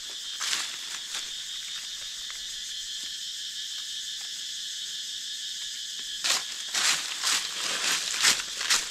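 Insects buzzing steadily in a high, even drone. From about six seconds in comes a run of crackling crunches of dry leaf litter being trodden or pushed aside.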